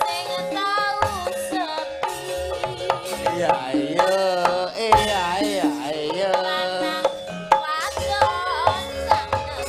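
Javanese gamelan music with kendang hand-drum strokes, and a voice singing over it in a wavering, sliding line.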